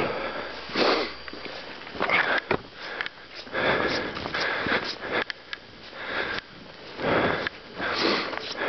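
A person sniffing and breathing hard close to the microphone, in noisy pulses about once a second.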